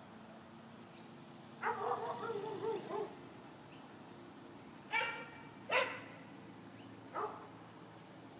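A dog barking: a wavering run of barks about a second and a half in, then three single sharp barks roughly a second apart.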